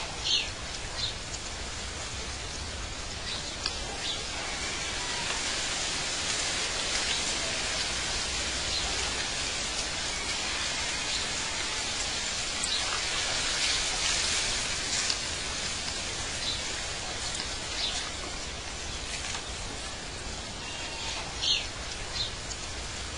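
Steady outdoor ambience: an even hiss with a few short, high bird chirps, the loudest just after the start and near the end.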